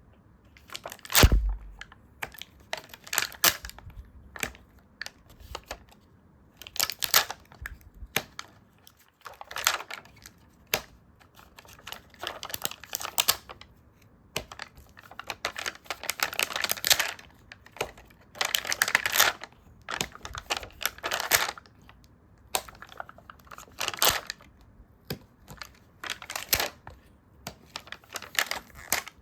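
Stickers peeled from their backing sheet and handled on paper: a run of short, irregular rustling and crinkling strokes with small ticks between them, and one dull thump about a second in.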